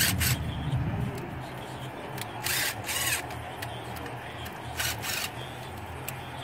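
Cordless DeWalt drill-driver with a nut-driver bit spinning in about five short bursts, in pairs, as it turns hose-clamp screws on an engine's water hoses. A low steady hum runs underneath.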